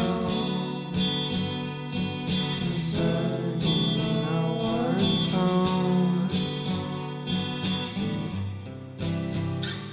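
Music led by strummed guitar.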